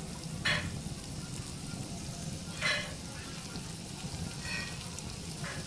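Marinated chicken sizzling steadily in a shallow pan. A knife scrapes against the pan twice, briefly, about half a second and two and a half seconds in.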